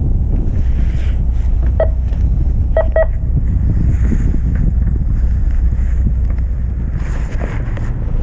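Steady low rumble of a fishing boat at sea, with wind buffeting the microphone, and a few brief light metallic clicks about two and three seconds in.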